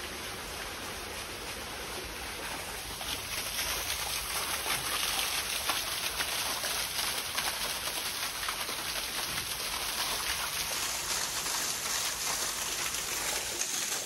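Waterfall: the steady noise of falling water, growing louder about three seconds in.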